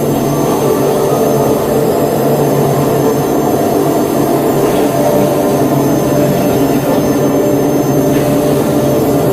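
Dark ritual ambient music, recorded live: a loud, dense, steady drone of layered low sustained tones over a haze of noise, with no beat.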